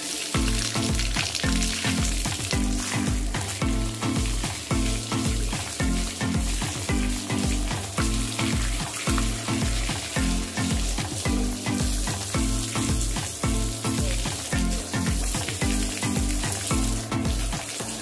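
Water spraying from a garden hose onto a dog's coat and splashing on concrete, a steady hiss, under background music with a steady beat and bass line.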